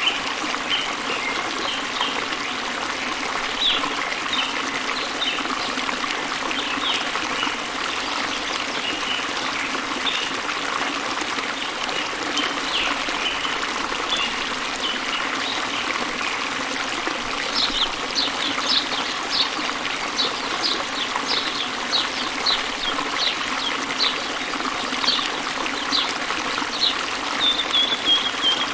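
Waterfall running steadily, with birds chirping over it. From a little past halfway a bird repeats a quick series of short, high notes, and a short falling trill sounds near the end.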